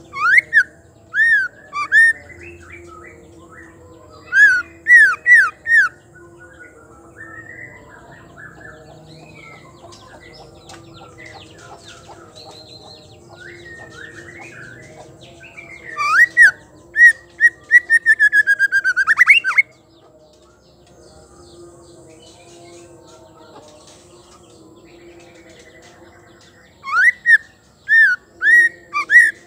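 Female white-rumped shama calling in loud bursts of short, down-slurred whistled notes. One longer run midway repeats quickly and ends in a rising sweep. Between the bursts, fainter bird chirps carry on.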